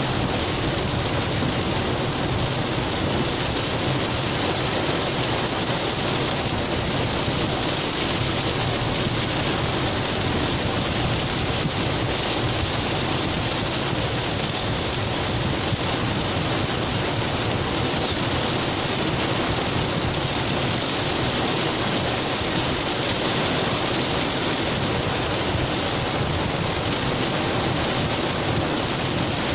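Heavy rain drumming steadily on a car's roof and windscreen, heard from inside the cabin, over a low, steady engine hum as the car sits in traffic.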